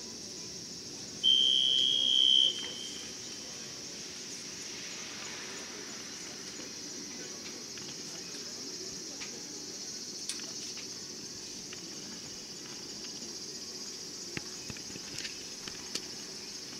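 Show-jumping start signal: a single steady high electronic tone lasting just over a second, starting about a second in. Underneath runs a steady high drone of insects.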